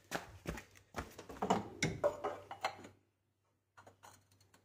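Clatter of a metal oil filter wrench being fitted onto a car's oil filter: quick clicks and scrapes for about three seconds, then a short pause and a few light clicks.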